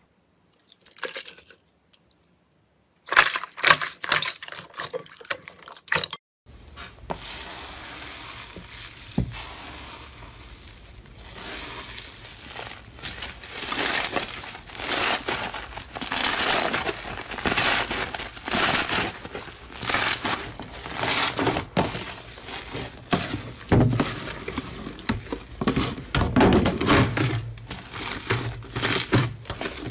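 Slime squeezed, pressed and kneaded by hand, with crackling, crunching squishes in quick succession. It starts almost silent, a few sharp crackles come about three seconds in, and from about six seconds in a low hum runs under the squishing.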